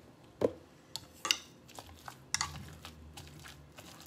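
A metal potato masher clinking and knocking against a steel saucepan as potatoes are mashed, a handful of sharp irregular clinks, some with a short metallic ring. About half a second in, a duller thud as a carton is set down on the tile counter.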